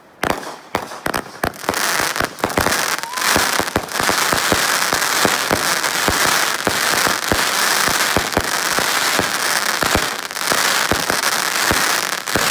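Consumer fireworks strobe and crackle mines going off in a fused sequence. Rapid sharp pops at first, then from about two seconds in a dense, continuous crackling with pops scattered through it.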